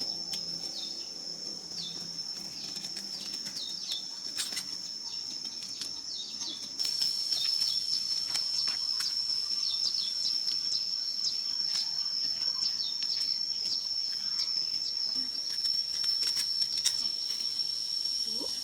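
A steady high-pitched insect drone in the open countryside, with many short falling chirps and scattered clicks over it. It gets louder about seven seconds in.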